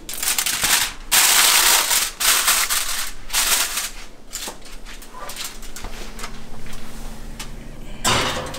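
Aluminium foil crinkling and rustling as it is pulled out and pressed down over a casserole dish, loudest in the first few seconds and softer after. A short clatter near the end as the oven is opened for the dish.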